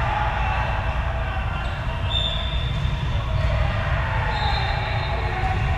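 Ambience of a large indoor volleyball gym between rallies: a steady low rumble with faint activity from the courts, and two brief high squeaks, about two seconds in and again near four and a half seconds.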